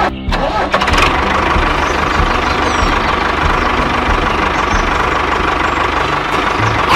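Tractor engine starting about a second in, then running steadily with an even, unchanging note.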